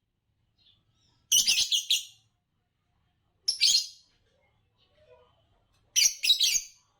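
Green Fischer's lovebirds giving shrill chirps in three short bursts, about a second in, at three and a half seconds, and at six seconds.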